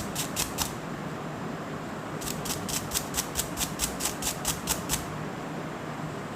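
Quick, even scrubbing strokes, about six a second, on a router bit as it is cleaned: a short run at the start, a pause, then a longer run of about three seconds.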